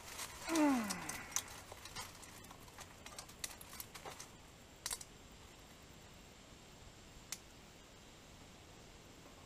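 A short groan-like voice sound falling in pitch, about half a second in. Scattered light clicks and snaps of small dry twigs follow as they are handled and broken for kindling.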